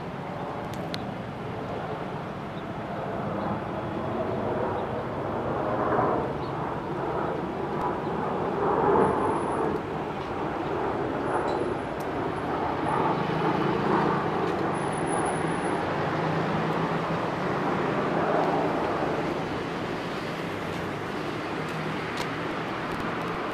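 Airliner jet engines rumbling overhead as the plane passes on its arrival approach, swelling and then easing a little, mixed with city street traffic.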